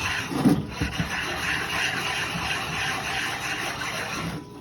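Transmission front pump being rubbed back and forth on a bench stone: a steady scraping with short breaks about half a second in and just before the end. The scraping is the stone taking the high spots off the pump face to make it flat.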